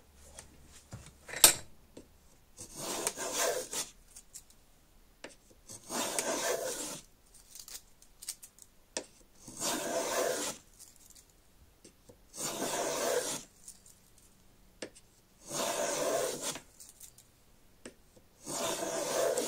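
Small brass luthier's thumb plane with a tool-steel blade taking six push strokes along the edge of a hard maple strip, each a hissing shave of about a second, roughly one every three seconds. A single sharp knock, the loudest sound, comes about a second and a half in.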